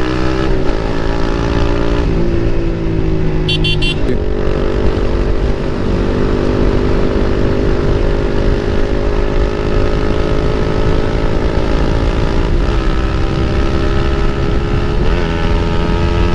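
Motorcycle engine through an aftermarket Akrapovic exhaust, running steadily under way. Its note dips briefly about two and four seconds in and wavers again near the end, as the throttle or gear changes. About three and a half seconds in comes a short run of high-pitched beeps.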